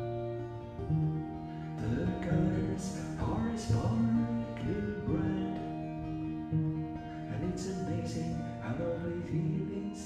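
Background music led by guitar, with held notes that change every second or so and a few sharp plucked strikes.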